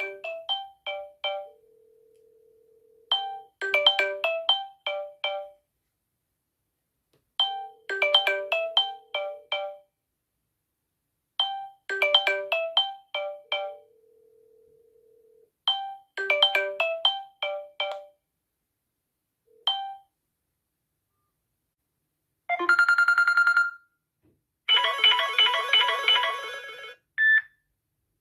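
Samsung Galaxy S7 ringtones playing: a short, bell-like melody repeating about every four seconds, then, about two-thirds of the way through, a switch to different, buzzier and denser ringtones, ending with a few single notes.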